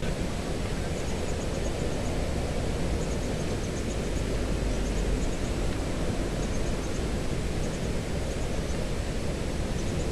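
Steady rushing wind noise on the microphone with a low rumble, overlaid by faint high chirps in short runs every second or two.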